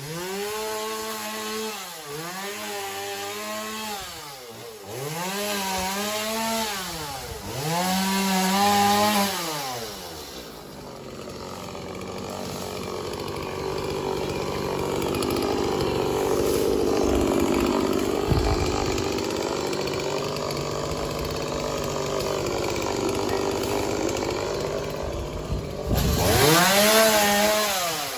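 Two-stroke chainsaw revving up and dropping back several times. It then runs steadily for about fifteen seconds, cutting wood, and revs up and down again near the end.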